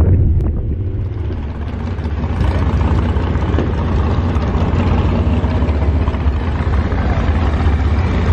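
Car engine idling with a deep, steady rumble.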